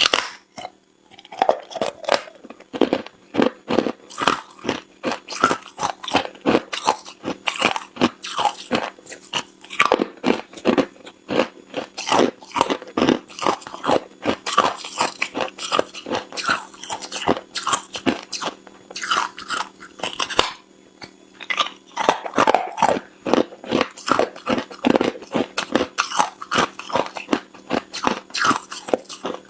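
Ice being bitten and chewed close to the microphone: rapid, irregular crunches, with short pauses about a second in and again about two-thirds of the way through.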